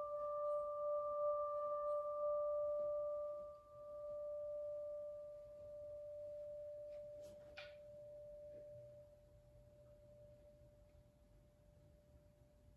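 A small handheld metal singing bowl ringing with one steady tone and a fainter higher overtone, slowly fading away. About seven and a half seconds in, the striker touches the bowl with a brief light click; the higher overtone has died out by then, while the main tone lingers faintly.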